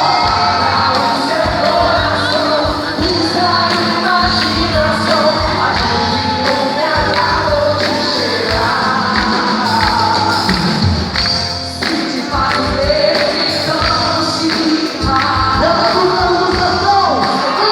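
Loud festa junina quadrilha music: a singing voice over a band with a steady, regular beat.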